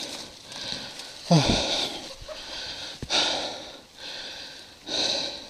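A winded rider breathing hard near the microphone, a heavy breath every second or so, the sign of exhaustion after a hard ride. There is a brief low falling sound about a second in, and a click about three seconds in.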